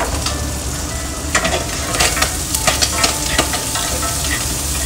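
Food sizzling in hot oil in a frying pan, with metal tongs clicking and scraping against the pan as it is stirred, the clicks busiest between about one and a half and three and a half seconds in.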